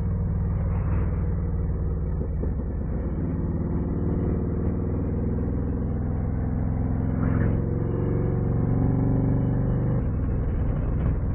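Harley-Davidson Street Glide ST's V-twin running through a custom C3 Vtwin 2-into-1 exhaust with a titanium can, on the move at a steady pace. It has a low, even exhaust note that shifts in pitch near the end.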